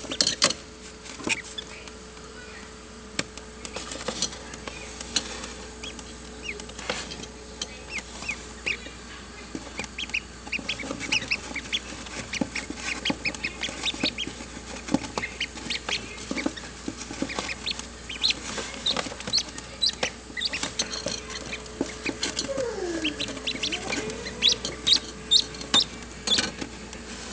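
Newly hatched ducklings peeping, many short high peeps in quick succession, busiest in the second half. A steady hum runs underneath for the first few seconds and again near the end.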